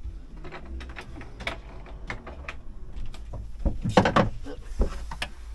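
Scattered clicks and knocks of hands and objects moving in a cramped wooden cabinet while a hose is reached for, with a louder cluster of knocks about four seconds in.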